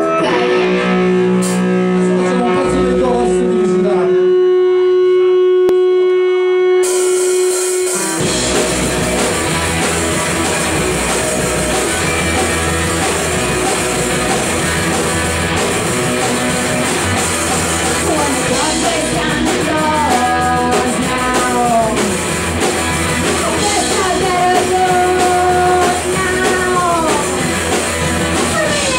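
Live rock band with electric guitars, bass and drum kit: a single held note rings out first, then the whole band comes in together about eight seconds in, and singing rises over it in the second half.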